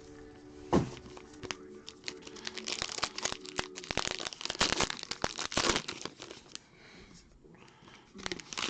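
Plastic wrapping crinkling and tearing as a sealed trading card box is unwrapped, in a run of crackling strokes. There is a sharp knock about a second in, and more crinkling near the end.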